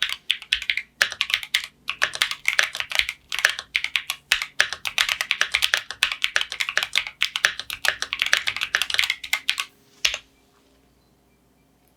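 Fast typing on a Keychron Q1 Pro mechanical keyboard fitted with Gateron Beer tactile switches, a quick run of keystroke clicks as a sound test of the switches. The typing stops about two seconds before the end.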